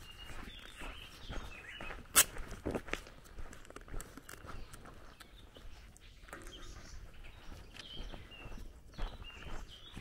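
Footsteps on a gravel dirt road at a walking pace, with small birds chirping. A single sharp click about two seconds in is the loudest sound.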